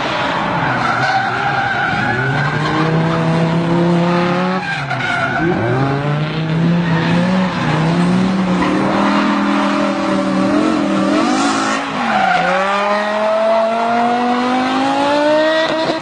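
Swapped-in BMW M5 engine in a first-generation Subaru, accelerating hard: its pitch climbs steadily and drops back sharply three times, about five, six and twelve seconds in, as it is run up through the gears.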